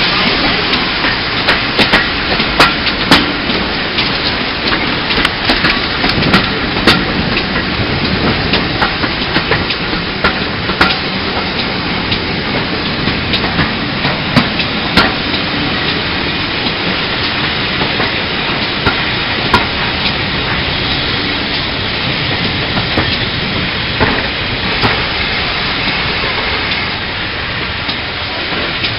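GWR 5101-class 'Large Prairie' tank locomotive No. 5164 passing close by, followed by its passenger carriages rolling past: a steady rush of wheels on rail with sharp clicks over the rail joints, the clicks thickest in roughly the first ten seconds.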